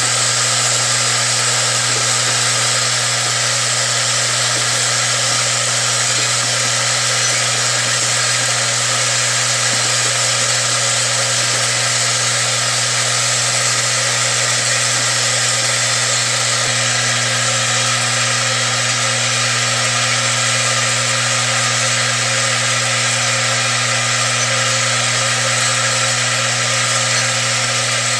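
Ammunition sorting machine running steadily: a constant electric hum under a continuous rattle of live pistol and rifle cartridges being sorted.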